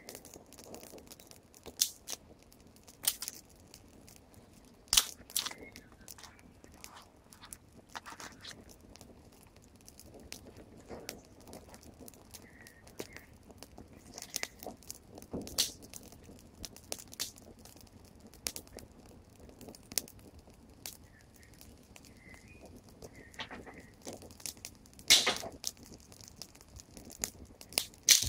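Small campfire of dry twigs and split sticks burning, crackling with irregular sharp pops, the loudest about 25 seconds in.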